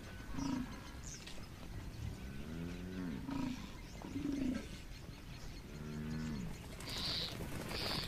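African buffalo calling: several short, low grunts and two longer lowing calls that fall in pitch, with a few brief scuffing noises near the end.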